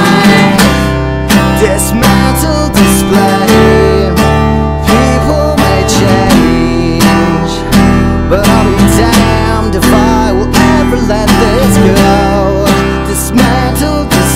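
Instrumental passage of a rock song: strummed guitar over sustained low bass notes, with a regular beat of sharp strokes.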